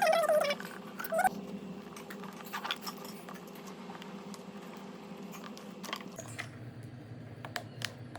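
Slime being handled: scattered small squishy clicks and crackles, with a short high-pitched squeal right at the start and a smaller one about a second in.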